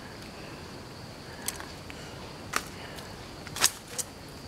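Four sharp clicks and knocks as a fish trap and a caught fish are handled, over a steady high insect drone.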